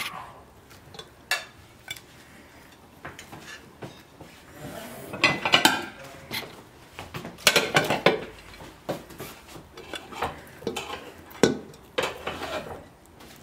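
Porcelain plates and an enamel pot clinking and knocking as pieces of grilled meat are dished out onto the plates: irregular clinks and scrapes, with a busier clatter about five to eight seconds in.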